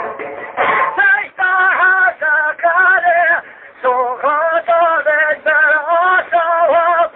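A man singing a kaside, a devotional sung poem, solo in a high voice with wavering, ornamented pitch, in short phrases broken by brief breaths, starting about a second in.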